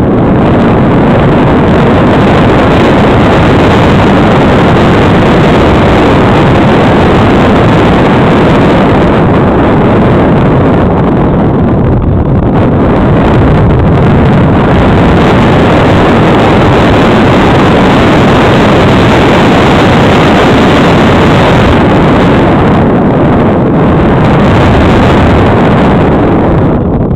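Loud, steady rushing of airflow buffeting the onboard camera microphone of a slope-soaring RC glider in flight, easing briefly about halfway through.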